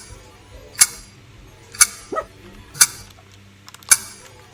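Sharp clicks evenly spaced about once a second, with a short rising squeak about two seconds in.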